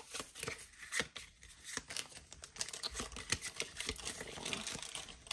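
Foil wrapper of a Pokémon booster pack crinkling and tearing as it is opened: a quick run of sharp, irregular crackles.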